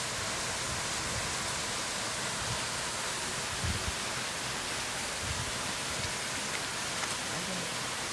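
Steady rushing hiss of running water with a few soft thumps in the middle.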